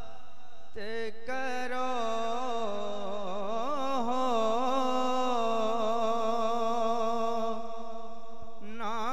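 A man singing a naat, an Urdu devotional poem in praise of the Prophet, unaccompanied into a microphone. He holds long, wavering notes with ornamented turns, with a short break about a second in.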